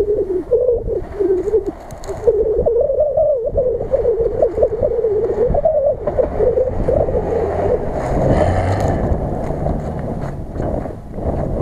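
Jeep Cherokee XJ driving slowly through snowy ruts, its engine note wavering up and down with the throttle; from about eight seconds in the sound turns rougher and noisier.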